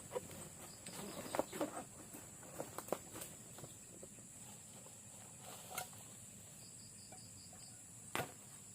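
Insects droning in a steady high buzz, with a short run of about six quick chirps a little past the middle. Scattered crackles and snaps come throughout, the loudest one near the end.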